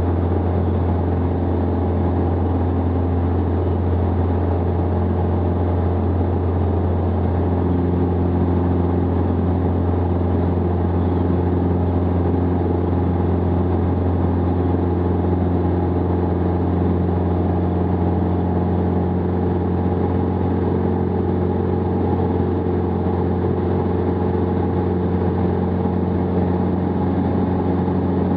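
Jabiru 2.2-litre four-cylinder air-cooled engine and propeller of a Jabiru SP500 light aircraft running steadily in flight, heard from inside the cockpit as a loud, even drone with a strong low hum.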